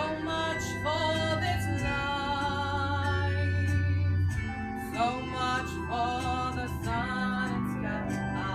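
A woman singing a sustained melody over instrumental accompaniment, with held low bass notes underneath.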